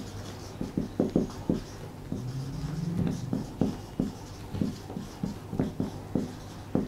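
Marker pen writing on a whiteboard: a run of short strokes and taps, a few each second, as words are written out.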